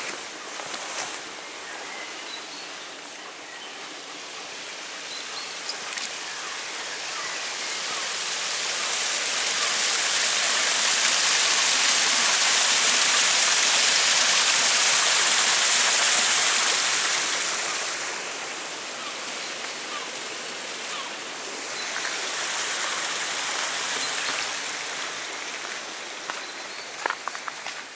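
Small woodland stream splashing down over mossy boulders: a steady rush of water that grows to its loudest midway and then fades. A few sharp ticks near the end.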